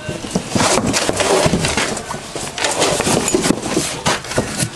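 Large cardboard box being handled, unfolded and spread flat on the floor: a dense, irregular crackling and rustling of stiff cardboard with many small knocks.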